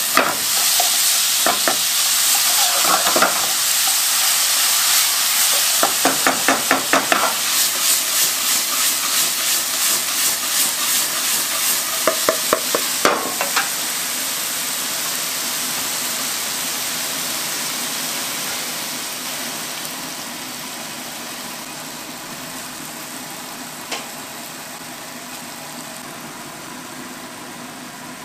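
Chopped onion, carrot and meat sizzling in a hot non-stick wok over a gas flame, stirred with a wooden ladle that scrapes and taps the pan in quick runs of ticks. After about thirteen seconds the sizzle settles to a softer, steady hiss that slowly fades.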